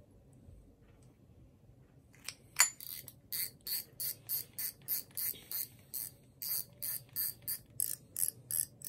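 Shimano Biomaster 2500S spinning reel clicking in a steady ratchet-like rhythm as its mechanism is worked by hand. The clicks start about two seconds in at about three a second, quicken slightly near the end, and one early click is louder than the rest.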